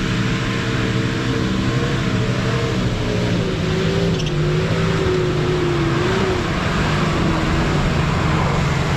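Engine of a Nissan 4WD working under load as it climbs a steep dirt hill, the revs rising and falling.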